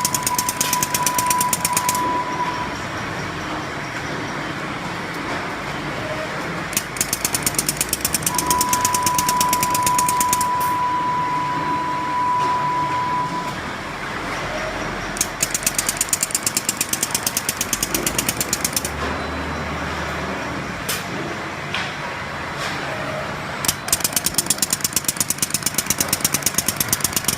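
A 3-axis servo-driven glue-pouring machine running, with four spells of rapid, even rattling clicks, each lasting a few seconds, over a steady mechanical din. A steady high tone sounds twice, the second time for about five seconds.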